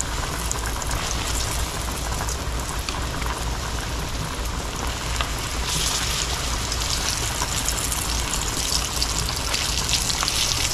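Flour-dredged chicken pieces frying in hot shortening in a cast iron skillet: a steady sizzle and crackle that grows louder about six seconds in and again near the end as more pieces go into the grease.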